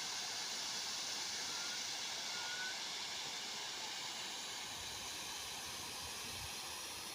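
Water running steadily over a small man-made waterfall on a river, a constant rushing hiss that fades slightly toward the end.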